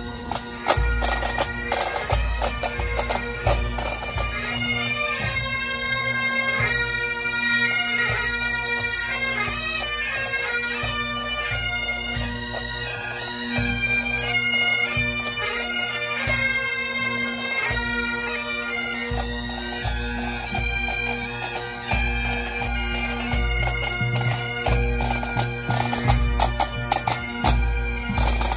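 A pipe band playing: Highland bagpipes sounding a tune over their steady drone, with the band's snare, tenor and bass drums beating. The deep drum beats are heaviest near the start and through the last third.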